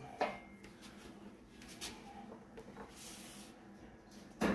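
Faint clicks and handling noises over a low steady hum, with a sharp click just after the start and a short, louder burst near the end.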